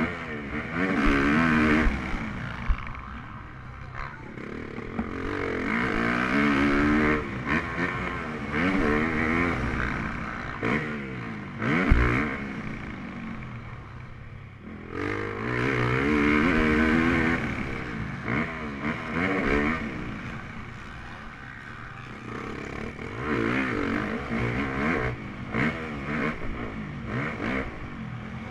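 Motocross bike engine heard from on the bike, revving up in repeated surges and dropping off between them as the rider accelerates out of turns and backs off. A sharp thump about twelve seconds in.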